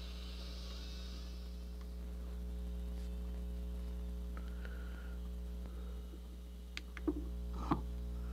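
Steady mains hum from the small amplifier speaker wired to the two-transistor AM radio kit: a low drone with a series of overtones and no station audible. A few light clicks come near the end.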